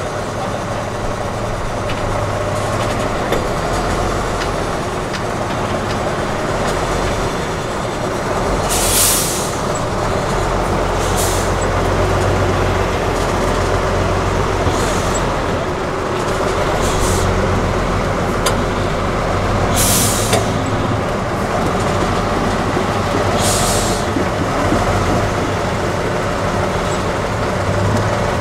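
Tatra 813 8x8 truck's engine running steadily under load while the truck crawls over a steep dirt obstacle. About six short sharp hisses of released compressed air, from its air brakes, cut through the engine sound.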